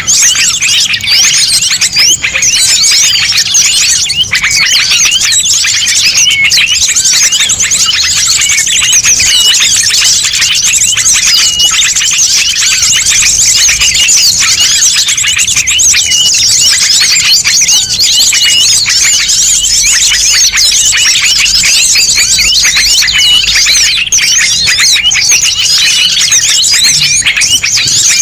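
A dense, noisy chorus of many small songbirds chirping and twittering over one another without pause. It is a mixed-species lure recording used to draw small birds in.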